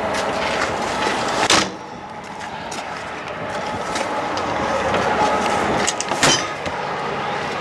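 Metal compartment door on a bucket truck's utility body, shut with a sharp bang about a second and a half in. Clacks from its chrome paddle latch follow about six seconds in, over steady background noise.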